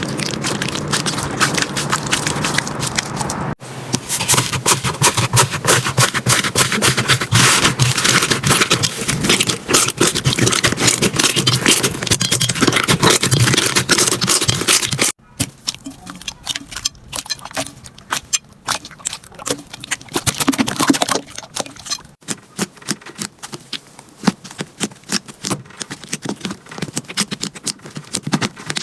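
Slime being squeezed and worked by hand, a dense crackle of small clicks and pops. The sound changes abruptly three times, becoming quieter and sparser after the middle.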